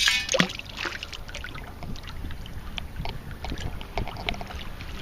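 Wind noise on the microphone over a sand scoop digging. A loud crunch comes first, then scattered gritty scrapes and clicks. A faint steady low hum comes in near the end.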